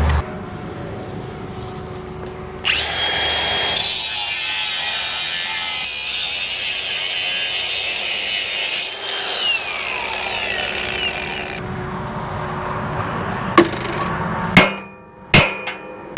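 A steel dump bed and hoist being dragged off a truck's frame by a forklift. There is a harsh metal-on-metal scrape for several seconds, with a squeal that falls in pitch, then a few sharp metal clanks with some ringing near the end. The forklift's engine runs underneath.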